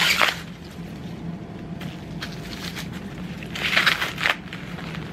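Short bursts of rustling and crinkling as corn on the cob is handled, three times, over a steady low hum.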